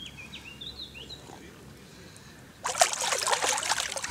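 Faint high chirps over a quiet lake, then about two-thirds of the way in a sudden loud burst of water splashing as a big common carp kicks free of the hands holding it in shallow water and swims off.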